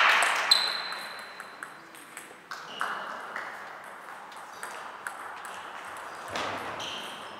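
Table tennis ball clicks: a loud hit at the start and another about half a second in, then scattered lighter clicks of the ball as the rally ends, ringing in a large hall.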